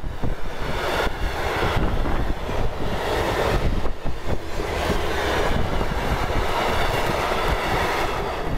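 Freight train of empty stake flat wagons rolling past close by: a steady rumble of wheels on rail with faint repeated knocks, under gusty wind buffeting the microphone.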